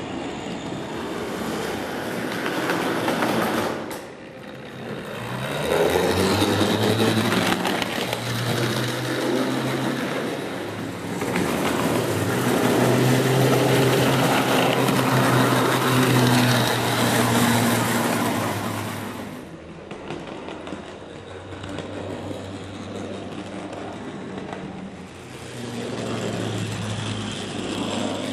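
O scale model trams running on a layout: their electric motors and gears humming while the wheels rattle over the rails, loudest as a tram runs close. The sound drops suddenly about 4 seconds in and again past the middle, then builds back up.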